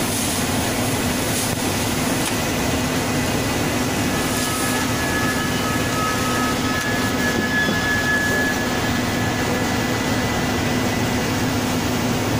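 Powder packaging machine running while a bag fills at its spout: a steady loud mechanical noise with a constant low hum. A thin high whistle comes in about four seconds in and fades near ten seconds.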